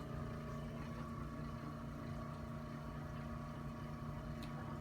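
Steady mechanical hum of a running motor, holding several fixed tones, with a faint click near the end.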